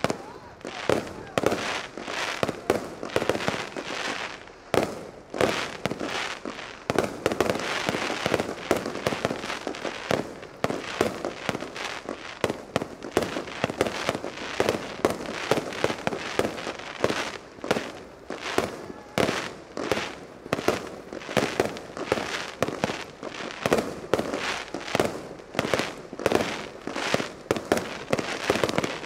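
Fireworks display: aerial shells bursting in a rapid, unbroken series, several bangs a second, over a continuous crackle.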